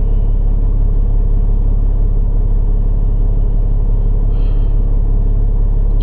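Semi truck's diesel engine idling steadily, a constant low rumble heard inside the cab.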